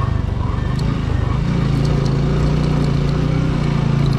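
Motorcycle engine running at low speed, close up from on the bike. About a second in its note changes and then holds a steady hum, with faint scattered ticks over it.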